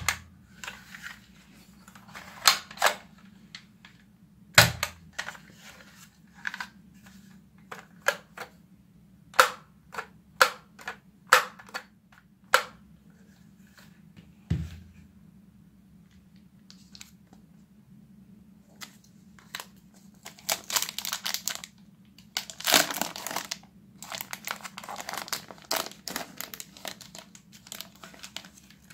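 A hard plastic toy foam-dart blaster being handled, giving a string of sharp clicks and knocks and two dull thumps. About twenty seconds in comes a run of crackling crinkles from the plastic wrapper on a pack of foam darts being opened.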